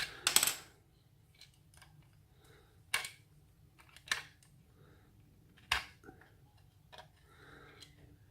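Sharp metallic clicks and taps of small lock parts and tools being handled while a stuck plug follower is worked loose: a quick cluster at the start, then single clicks a second or so apart.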